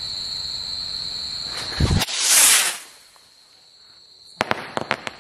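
Diwali firework rocket taking off with a loud hiss about two seconds in. About two seconds later comes a quick string of sharp cracks as the bijli crackers taped to it burst in the air, one after another. Crickets chirp steadily before the launch.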